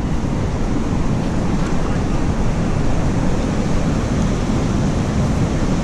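Wind buffeting the camera's microphone: a steady rushing rumble, heaviest in the low end.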